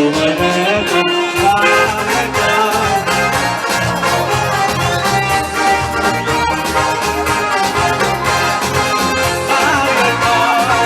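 Lively instrumental music with many instruments playing together at a steady loud level and no singing, in the style of the Lag BaOmer songs heard around it.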